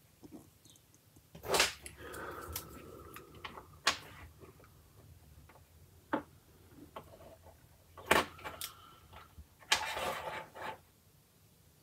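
Plastic clothes pegs clacking as they are squeezed, clipped onto small parts and set down on a desk: a handful of sharp clicks and clatters with quieter handling and scraping between them, the loudest about a second and a half in and around eight seconds in.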